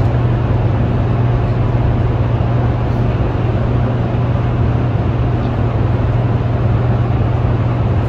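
Steady, loud hum and rumble of Hoover Dam's hydroelectric generators running in the power plant's generator hall, a strong low electrical hum over an even machine rumble that does not change.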